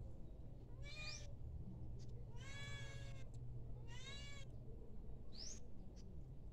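Domestic cat meowing four times, the second call the longest.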